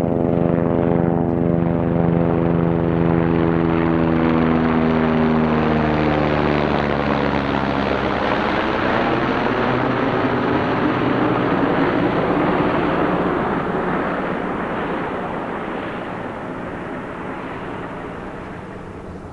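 Helicopter flying past overhead: its engine and rotor tone falls slowly in pitch as it passes, then the sound fades steadily as it moves away.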